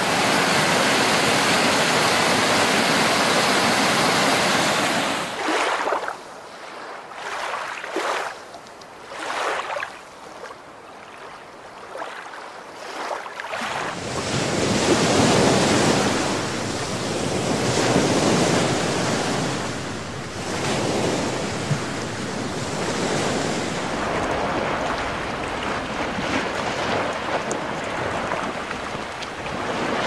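A mountain stream rushing loudly and steadily, cutting off about five seconds in. A quieter stretch of short swells of water noise follows, and from about halfway on, sea waves wash onto a shore in slow swells.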